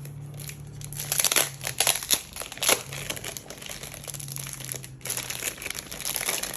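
Packaging crinkling and crackling as a diary is unwrapped by hand, with a run of sharp crackles in the first few seconds that thins out to lighter rustling.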